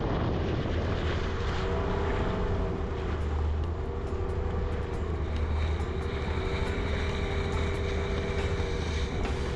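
Motorboat engine running steadily under way, a constant low drone with a wavering higher tone over it.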